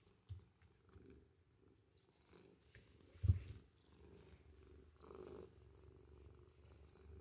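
Ginger tabby cat purring as it is stroked, the purr building after the midpoint, with one loud thump about three seconds in.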